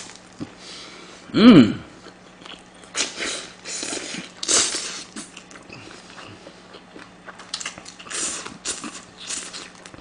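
Close-miked chewing and slurping of food, in wet bursts every second or so. About a second and a half in comes a short voiced sound that rises and then falls in pitch. It is the loudest moment.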